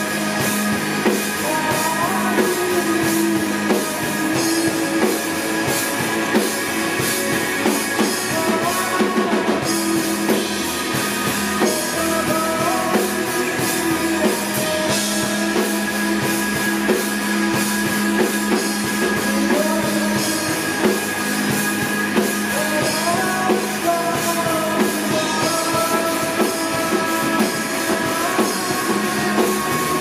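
Live rock band playing at steady loudness: electric guitars, bass guitar and a Pearl drum kit together.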